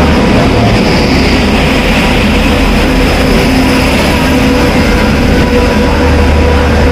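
Passenger train coaches rolling past at low speed as the train pulls out, a steady loud rumble of wheels on rails with a faint running whine.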